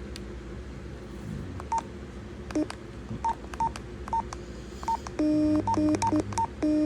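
A radio's key beeps as its buttons are pressed to step through channels: a string of short high beeps, then from about five seconds in several longer, lower and louder beeps.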